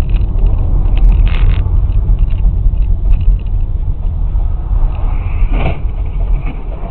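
Dashcam recording of a car driving: a steady, loud low road-and-engine rumble with a few short knocks in the first two seconds. About five and a half seconds in comes a short, louder crash noise as a car ahead smashes into something.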